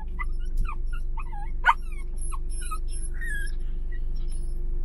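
Miniature dachshund puppy whining and yipping in short, high cries again and again, with one sharper, louder yelp about a second and a half in. A low steady hum of the car cabin lies underneath.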